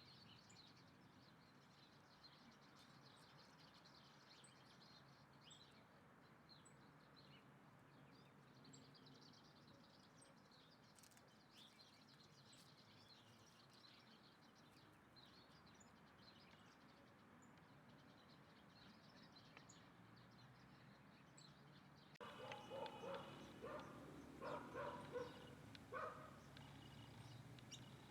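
Faint outdoor background with scattered short, high bird chirps. After a sudden change in the background, a run of louder, lower-pitched calls comes several times over about four seconds.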